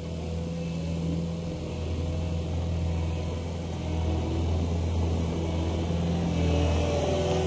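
Cat 289D compact track loader's diesel engine running steadily, getting louder toward the end as the machine comes closer.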